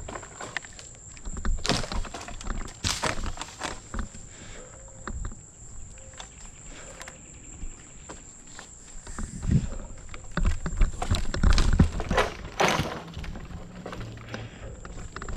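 Manual pole saw cutting dead pine limbs: irregular rasping strokes and knocks, with a few louder crashing bursts, the loudest stretch a little past the middle.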